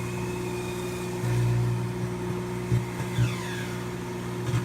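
Microwave oven running with its steady mains hum while a cut grape arcs inside, with a few sharp crackling pops from the sparking, twice in the second half and once near the end.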